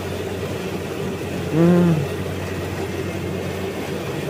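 Combine harvester engine running steadily with a constant low hum. About a second and a half in comes one short, loud, rising-then-falling call, like a brief vocal exclamation.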